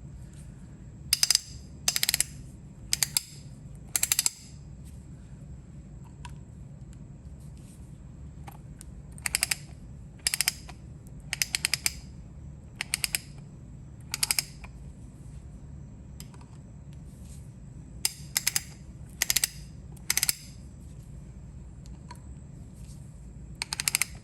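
Restored Lowell Corporation 5/8-inch square drive ratchet being worked back and forth, its pawl clicking over the teeth in about a dozen short bursts of rapid clicks with pauses between them. The pawl now ratchets properly, its set screw adjusted so it retracts the right way.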